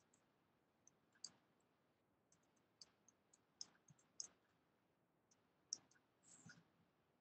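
Near silence with faint, short clicks scattered irregularly through it, the clearest about a second in and again near the middle and toward the end.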